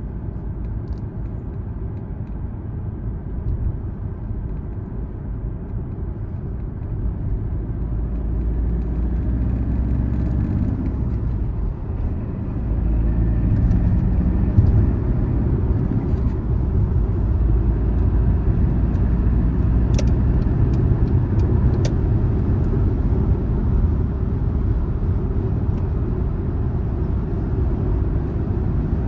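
Car driving on a road: a steady low rumble of engine and tyre noise that grows louder several seconds in, with two sharp clicks about two seconds apart in the second half.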